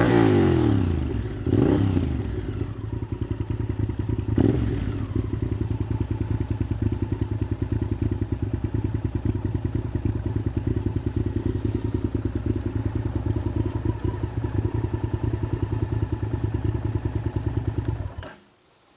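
Honda VTR1000F's 90-degree V-twin through Scorpion straight-through silencers: revs falling back at the start, two short throttle blips in the first five seconds, then idling with an even pulsing beat until it stops suddenly near the end.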